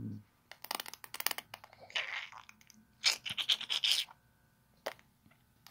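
Scratching and rubbing noises close to the phone's microphone, in several short bursts with a few sharp clicks: handling noise as the phone is held and settled.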